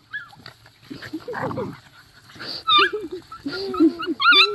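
A dog whining and whimpering in a run of short wavering cries, some high and squeaky, growing louder toward the end.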